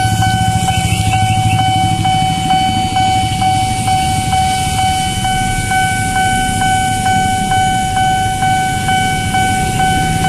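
Railway level-crossing warning alarm sounding a steady electronic tone that pulses about twice a second, over the low rumble of passing cars and motorbikes.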